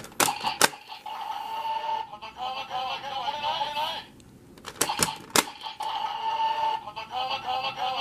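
DX Dragvisor Zwei toy gun clacking twice as it is worked, then playing wavering electronic voice and sound effects with a big echo effect; two more clacks about five seconds in set off another round of echoing electronic sound.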